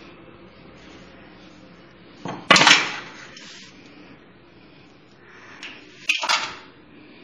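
Two brief clattering knocks of something handled on the work surface, about four seconds apart, the first the louder, over a steady low hiss.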